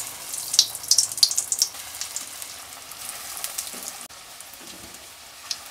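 Breadcrumb-coated egg devils (egg-and-potato chops) deep-frying in hot vegetable oil in a kadai: a steady sizzle with crackling pops, busiest in the first couple of seconds just after a chop is lowered into the oil.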